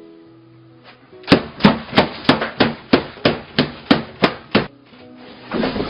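A rapid series of eleven sharp knocks, about three a second, over light background music. A short noisy rush follows near the end.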